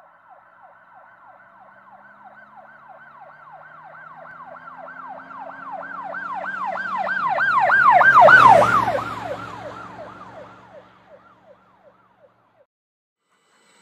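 Emergency-vehicle siren cycling quickly up and down in pitch, about three to four times a second, over a vehicle rumble. It grows louder to a peak about eight seconds in, drops slightly in pitch and fades away, like a siren vehicle passing by.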